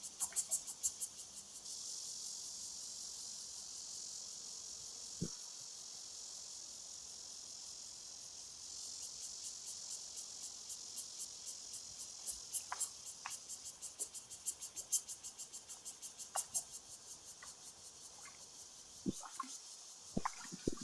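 Insects chirping in a fast, even, high-pitched pulse, with a steady high buzz for several seconds early on. A few sharp knocks come near the end.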